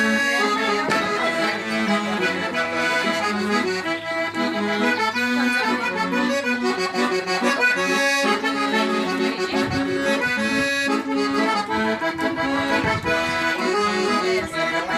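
A sanfona (button or piano accordion) playing a lively traditional tune, with chords and melody over bass notes.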